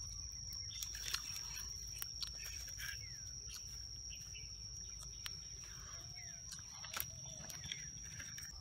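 Forest ambience: a few short bird chirps over a steady high-pitched tone, with scattered sharp clicks and knocks from sticks being pushed into a campfire, the loudest about a second in and again about seven seconds in.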